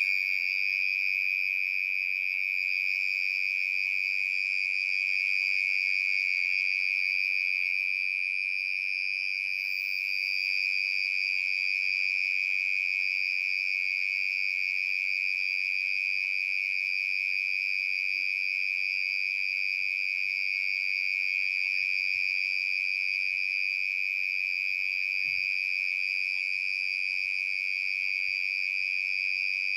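Cricket trilling in a steady, unbroken high-pitched call that holds an even pitch and loudness throughout.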